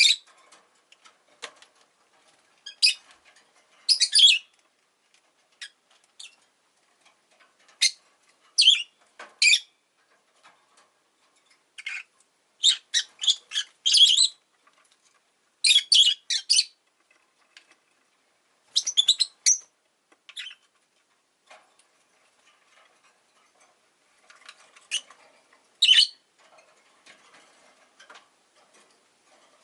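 Rosy-faced lovebird giving short, sharp, high-pitched chirps, some single and some in quick runs of several, with brief quiet gaps between.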